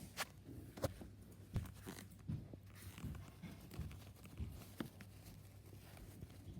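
Soft irregular squishing and sticky clicking, a few times a second, as a small soft mochi squishy toy is squeezed and handled by hand up close.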